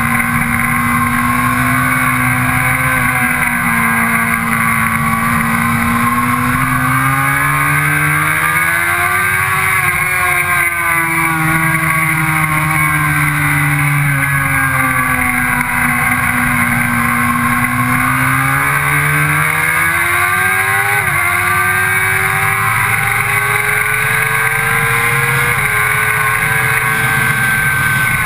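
Sportbike engine heard from on the bike, pulling through a run of corners at track speed, its revs rising and falling with the throttle. Near the end there are a couple of abrupt steps in pitch, gear changes. Steady wind rush runs underneath.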